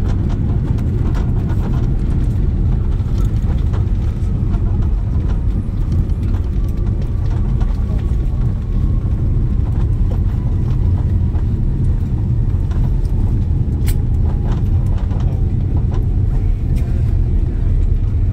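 Inside the cabin of an Airbus A330 rolling on the ground after landing: a steady, loud low rumble from the engines and the wheels on the concrete. A faint whine falls slowly in pitch in the first half.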